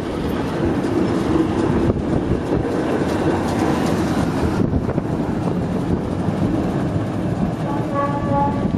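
Vintage Belgian coast tram running close past on its rails, a steady rumble of wheels and running gear with some rail clatter. Near the end comes a brief steady tone of several pitches at once.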